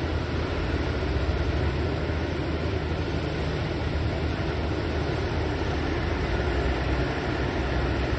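Boat outboard engines running steadily, a constant low hum over a steady rushing noise.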